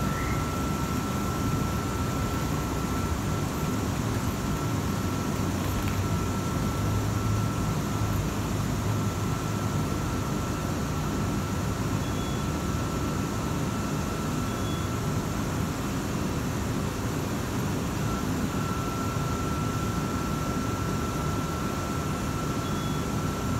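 V set double-deck electric train standing at the platform, its running equipment giving a steady hum with a thin high whine that drops out for a few seconds midway.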